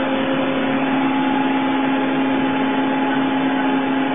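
CNC milling machine spindle started clockwise at a slow 50 rpm, running with a steady machine hum; a higher steady whine comes in about a second in.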